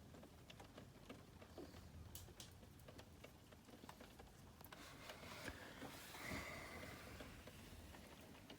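Near silence: faint patter and drips of rain, with a soft swell of noise about five to seven seconds in.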